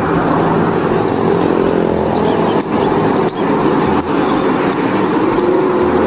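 A motor vehicle engine running steadily, with two faint clicks near the middle.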